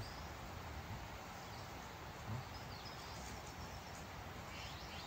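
Faint outdoor ambience with a few short, distant bird chirps and a soft low thump about two seconds in.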